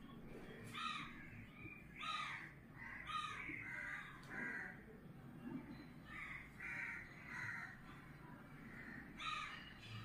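Crows cawing, faint: a string of short caws, some coming in quick pairs.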